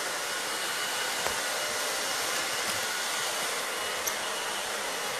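Handheld hair dryer blowing steadily, a constant airy whoosh, drying fresh paint on a wooden tabletop.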